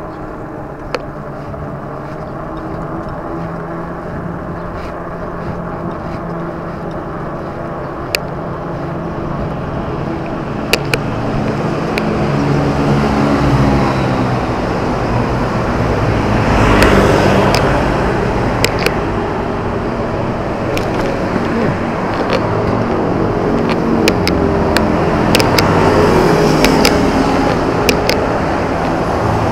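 Road traffic: motor vehicle engines running and passing, with a steady rush of road noise that swells to its loudest about 17 seconds in. A few sharp clicks are scattered through it.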